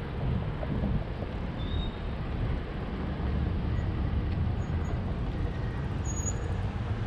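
Steady low rumble of street traffic and the bicycle rolling over the road, picked up by a handlebar-mounted action camera.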